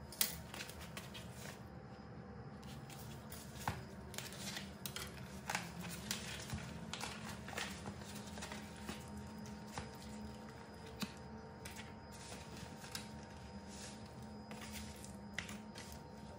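Food-prep handling noises: scattered clicks and knocks of a knife on a plastic cutting board and granite counter, rustling of plastic food-prep gloves and chicken packaging, and raw chicken breast set down on the board. A steady low hum runs underneath.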